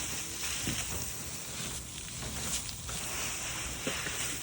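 Sleet (ice pellets) falling steadily, a continuous high hiss like little hail, with a few faint ticks and knocks mixed in.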